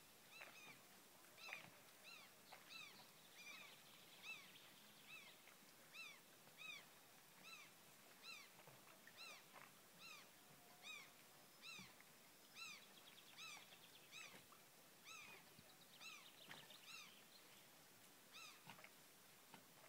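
Faint bird calls: a short call that rises and falls, repeated about once or twice a second, with a few quick trills mixed in.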